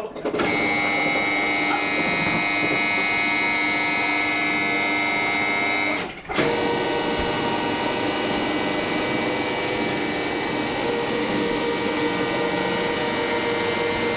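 Matterson electric lifting jacks running under a steam locomotive's frames: a steady mechanical whine made of several fixed tones. It breaks off briefly about six seconds in, then runs on.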